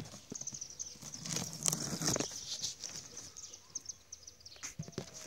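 A cardboard box being opened by hand: a knife slitting packing tape and the flaps being pulled open, with papery rustling and scraping that is loudest about one to two seconds in, among scattered small clicks.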